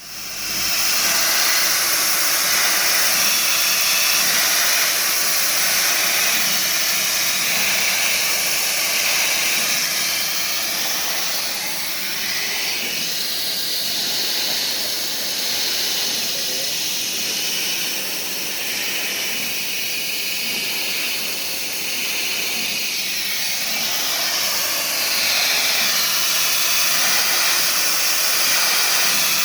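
CNC machine machining aluminium window and door frame profiles: a steady, loud high hiss and whine whose pitch bands drift up and down as the cut goes on.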